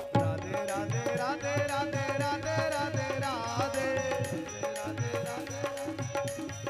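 Indian devotional kirtan music: a harmonium holding a steady note under a melody, with a hand drum such as tabla keeping a steady beat and a voice singing with sliding ornaments.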